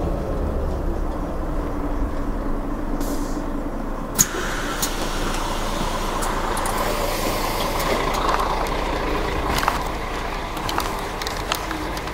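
A motor vehicle running, its engine pitch falling in the first second, over a steady low rumble, with a few sharp clicks or knocks, the loudest about four seconds in.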